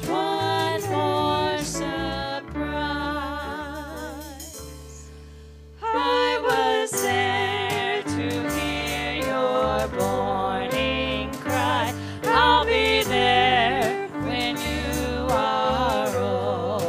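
A woman sings a worship song into a microphone with vibrato, backed by a band. The music thins out and fades for a few seconds, then comes back in full about six seconds in.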